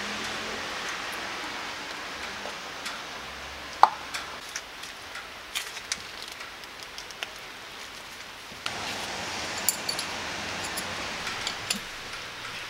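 Scattered clinks and plastic-packet rustles, then, about nine seconds in, cooking oil in a small cast-iron pot starting to sizzle with sharp crackles as black bean paste is fried in it, over a steady background hiss.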